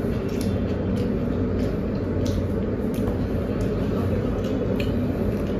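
Steady low hum of room background noise, with a few soft clicks and mouth sounds from people eating roti by hand.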